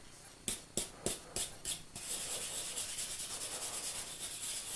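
A brush scrubbing the last loosened rust off an iron Hotchkiss artillery shell fresh from electrolysis. A few separate strokes in the first two seconds, then fast, continuous scrubbing.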